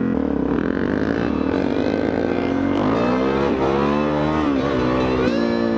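Suzuki DR-Z400's single-cylinder four-stroke engine revving hard as the dirt bike accelerates, its pitch climbing and dropping several times as the throttle is opened and eased off.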